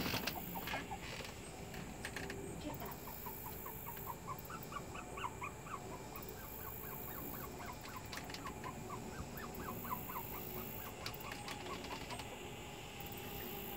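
A bird chirping: a long run of short, high chirps, several a second, starting a few seconds in and stopping near the end, over faint outdoor background noise.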